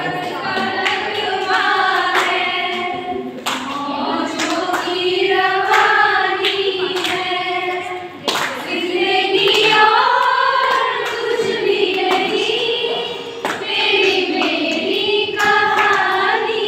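Women's voices singing a song together in long held phrases, with a few hand claps.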